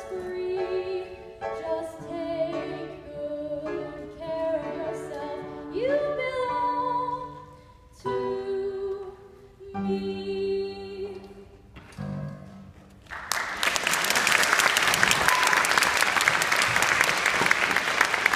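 Singing with instrumental accompaniment in a stage musical, heard from the audience, as a song draws to its close; about thirteen seconds in the music ends and the audience breaks into loud applause.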